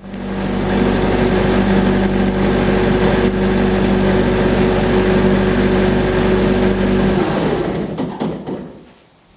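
Bobcat 763 skid steer's Kubota diesel engine running steadily after warm-up, then shut off about seven seconds in and winding down to a stop.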